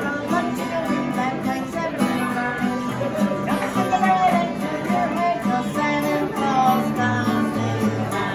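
Acoustic guitar strummed in steady chords, with a voice carrying a melody over it.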